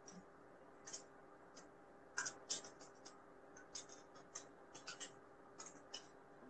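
Near silence with about a dozen faint, irregular small clicks and ticks, the loudest a little over two seconds in, over a faint steady hum.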